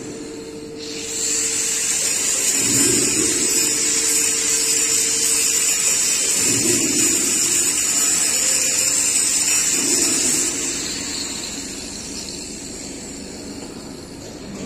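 Angle grinder starting up about a second in and grinding the end of a steel pipe with a steady high-pitched whine, then dying away gradually over the last four seconds. A faint low pulse repeats every three to four seconds underneath.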